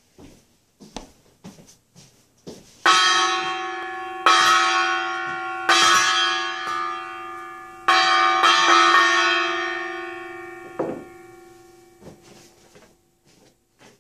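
A bell struck four times, about three seconds in and then every second and a half to two seconds, each stroke ringing and slowly fading away. A few soft knocks come before the first stroke.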